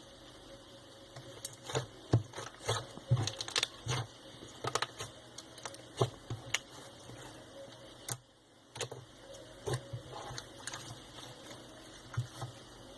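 Blue slime being squeezed and played with by hand: irregular sticky clicks and pops, with a short pause partway through.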